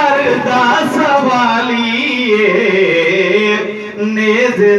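A man singing a Punjabi naat, drawing out long notes that bend up and down between lines of the verse.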